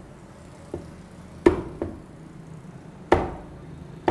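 A heavy meat cleaver chopping raw chicken on a wooden chopping block: sharp strikes at an uneven pace, two loud ones about a second and a half apart and lighter ones between.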